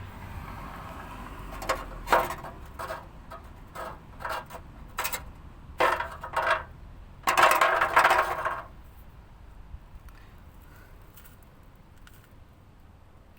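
Loose heat shield on a Hyundai Santa Fe rattling and clanking in a run of irregular metallic knocks, thickest near the end of the run; the shield has come off its mounts on both sides.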